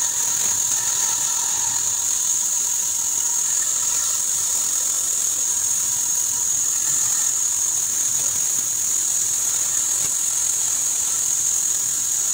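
Band saw running and cutting through a thick wooden block, a steady high-pitched whine over the machine's hum.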